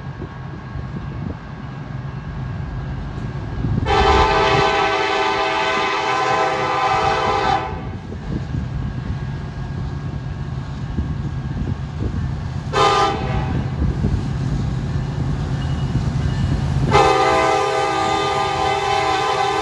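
Union Pacific diesel freight locomotives approaching with a steady engine rumble. The air horn sounds a chord three times, blown for the grade crossing: a long blast about four seconds in, a short one around thirteen seconds, and another long blast starting near the end.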